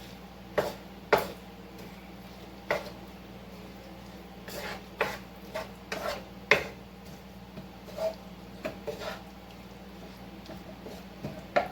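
A utensil clinking and scraping against a pan as seasoned ground-turkey taco meat is stirred, in about a dozen irregular knocks, over a steady low hum.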